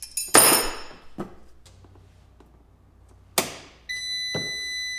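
A sharp snap about half a second in as a heavy cable is connected to the 48 V inverter charger. A click comes a little past three seconds, and just under four seconds in the inverter powers up with a steady high-pitched electronic beep that keeps going.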